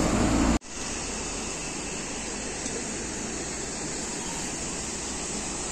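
Steady rushing of flowing river water. A louder low rumble cuts off abruptly about half a second in, leaving the even rush of the water.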